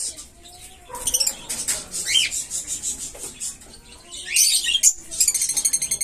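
Caged small parrots chirping: scattered sharp, high chirps, then from about five seconds in a fast run of short chirps, about ten a second.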